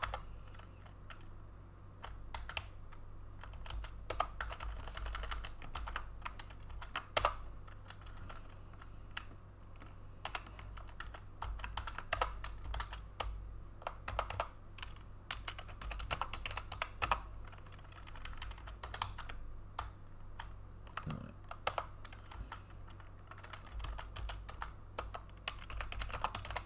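Typing on a computer keyboard: irregular key clicks in uneven runs with short pauses, over a low steady hum.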